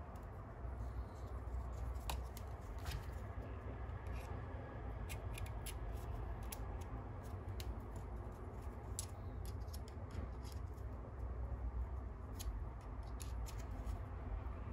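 Scattered light clicks and taps of an Apple Watch Ultra and its loop band being handled, as the band's end is fitted into the watch case near the end, over a steady low hum.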